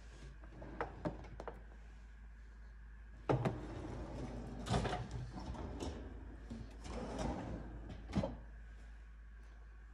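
Kitchen drawers being slid and bumped, with a few light clicks early on, a sharp knock about three seconds in followed by a second of sliding noise, more sliding later, and another sharp knock near the end.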